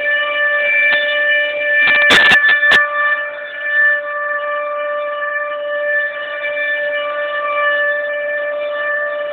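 Air raid siren sound effect played through a speaker, holding one steady pitch, with a quick cluster of sharp knocks about two seconds in.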